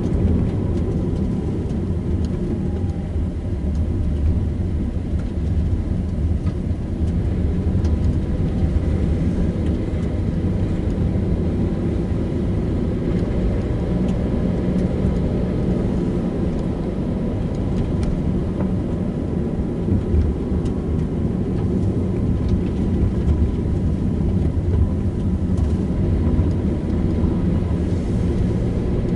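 A car driving steadily along a road, its engine and tyres making a continuous low rumble with no breaks.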